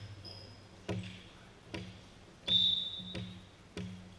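A volleyball bounced repeatedly on a hardwood gym floor, about one echoing thud a second. A brief shoe squeak on the floor comes about two and a half seconds in.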